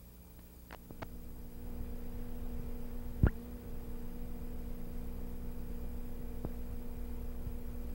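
Steady low hum over background noise, with a few sharp clicks; the loudest click comes just after three seconds in.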